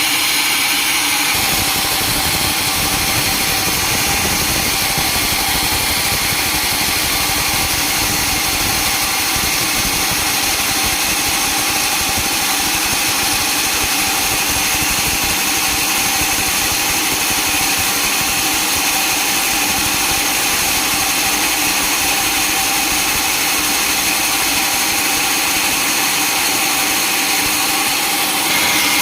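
Sawmill machinery running steadily: a loud, unbroken mechanical noise with a constant high whine.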